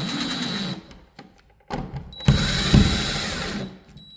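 Power drill driving the dimmer switch's mounting screws into the electrical box. One run stops under a second in, and a second run follows about two seconds in and lasts about a second and a half.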